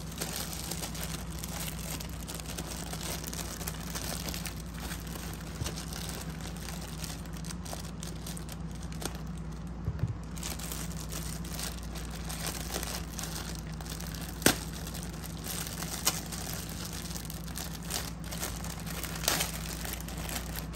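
Clear plastic bag crinkling and crackling as a plush toy sealed inside it is handled and unwrapped, with a few sharp clicks, the sharpest about two-thirds of the way through. A steady low hum runs underneath.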